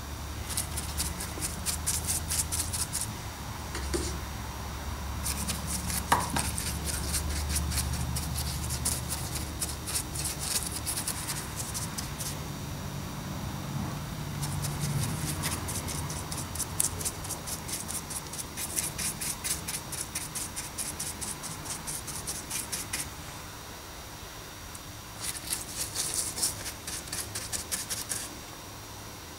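Bristle paintbrush scrubbing a thin, watery grey paint wash into textured model rock castings, in four spells of rapid scratchy strokes with short pauses between.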